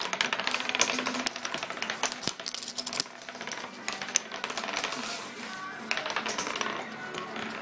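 Wooden nickels, thin wooden discs, spinning and wobbling on a wooden tabletop: a dense, irregular run of rapid clicks and rattles as they spin down and clatter flat.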